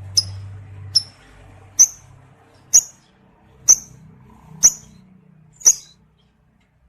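Lovebird giving short, sharp, high chirps, about one a second, seven in all, ending about six seconds in.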